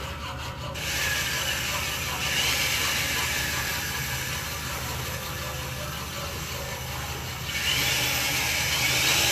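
Machinery noise over a steady low hum. The noise grows louder about a second in and again near the end.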